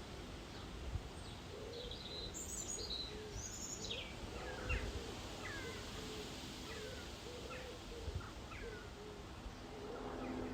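Outdoor animal calls, most likely birds: a steady run of short, repeated low calls with scattered higher chirps and whistles over faint background noise.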